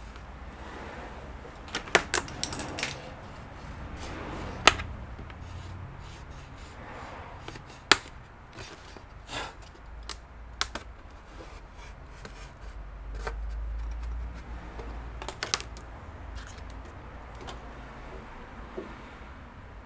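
Plastic pry tools clicking and snapping against a laptop's display lid and bezel as the LCD panel is pried loose. The sharp clicks are irregular, with a quick cluster around two seconds in and single snaps spread through the rest.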